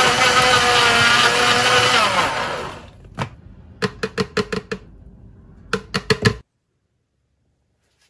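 A small electric motor running with a whine that wavers in pitch, then winding down about three seconds in. It is followed by a dozen or so short, sharp clicks in two quick clusters, after which the sound cuts off abruptly.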